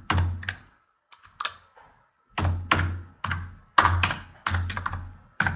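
Typing on a computer keyboard: a run of keystrokes in uneven clusters with short pauses, each key press a sharp click with a dull thud beneath it.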